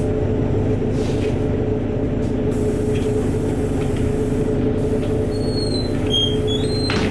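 Steady drone inside a moving LiAZ-4292.60 city bus: the diesel engine hums evenly under road rumble. A few short high chirps come near the end.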